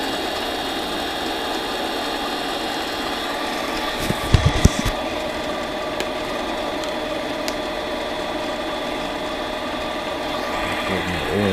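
Harbor Freight mini lathe running at a steady set speed, its motor and drive giving an even whine with several steady tones. About four seconds in comes a brief cluster of sharp clicks, with a couple of single clicks after it.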